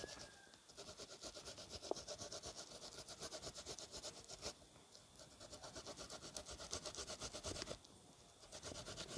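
Faint rasping strokes of a peeled green banana rubbed up and down a hand grater, about four strokes a second, with two short pauses.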